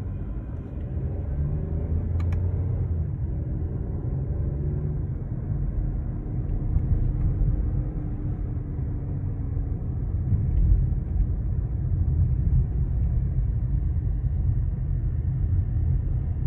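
Peugeot 2008's 1.2-litre three-cylinder turbo petrol engine heard from inside the cabin under way in manual mode. Its note rises over the first few seconds, then holds steady over a low rumble, with one brief click about two seconds in. The revs sit around 2200–2500 rpm, the band where the owner hears a 'da-da-da' rattle behind the front passenger glovebox.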